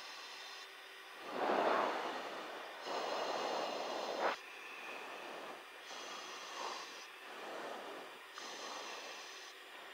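Open intercom channel in a chase aircraft, hissing with a thin high electrical whine that cuts in and out. There are two louder rushes of noise on the headset microphone, about a second in and about three seconds in.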